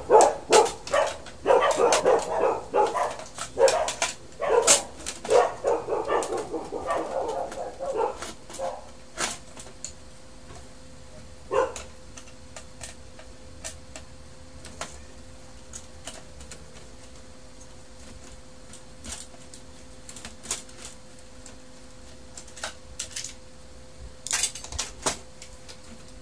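A dog barking over and over in quick succession for about the first eight seconds. After that, scattered clicks and taps from a screwdriver and plastic printer parts being handled, over a faint steady hum.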